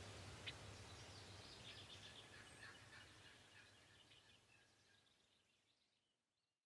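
Faint outdoor ambience with a few short bird chirps, fading out to silence about five seconds in.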